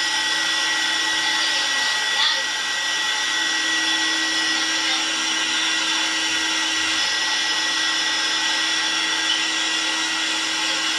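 Electric hair clippers running steadily with a constant hum.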